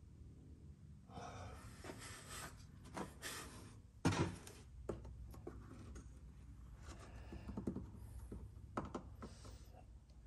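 Hands handling a plastic oil jug at the workbench: scattered light clicks and knocks, with one louder thunk about four seconds in.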